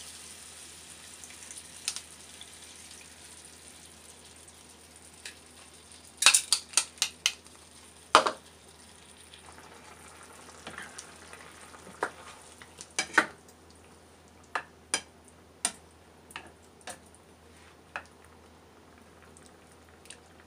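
Chicken sizzling in a pan as annatto water is poured in, the sizzle dying down over the first few seconds. Then sharp clinks and knocks of utensils against the pan: a quick cluster about six to eight seconds in, and single knocks every second or so after, as a plastic spatula stirs the chicken.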